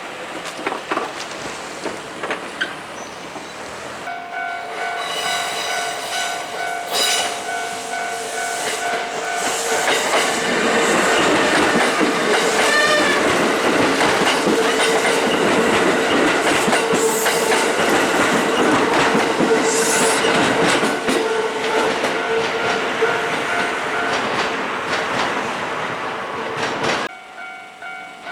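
Japanese level-crossing warning bell ringing in a steady repeating pattern as a Kintetsu electric train passes over the crossing. The rumble and wheel clatter are loudest from about ten seconds in until about twenty-five seconds, with a steady tone from the train running underneath. The sound drops off suddenly near the end.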